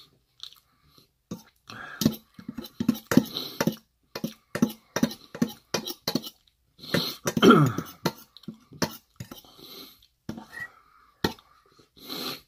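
Close-miked eating: chewing and wet mouth clicks, with a metal fork clinking and scraping in a metal bowl. A short throat sound that drops in pitch comes about halfway through.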